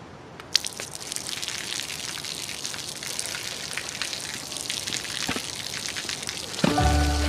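Water streaming down and splashing onto pavement, a steady crackly patter of drops that starts about half a second in. Music with a low bass comes in near the end.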